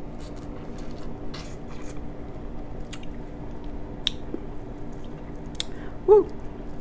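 Wet mouth sounds of licking and smacking seafood-boil sauce off fingers, then hands squishing through shrimp in a bowl of sauce, with scattered sharp clicks. A short hummed sound near the end is the loudest moment.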